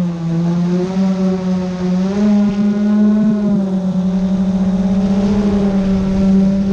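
Multirotor drone's motors and propellers humming steadily, the pitch dipping near the start and rising again about two seconds in as the drone manoeuvres. A fast pulsing beat sets in around the middle.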